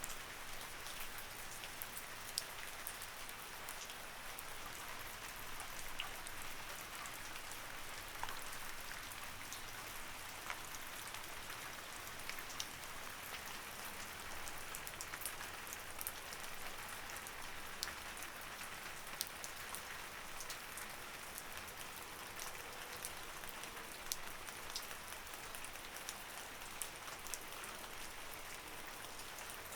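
Light rain falling steadily, a soft hiss of rain with many small scattered drips and droplet ticks.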